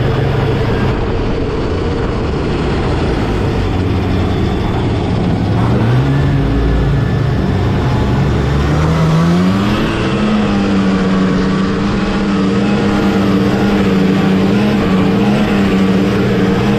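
1979 Scorpion Whip TKX snowmobile's two-stroke engine running under way, over a steady rush of track and wind noise. The engine note sinks lower through the middle, then climbs as it accelerates about nine seconds in and holds a steady pitch.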